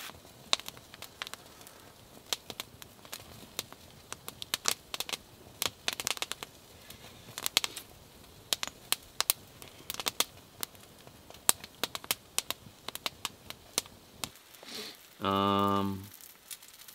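Campfire crackling and snapping in irregular sharp pops. Near the end a person gives one short, steady hummed 'hmm'.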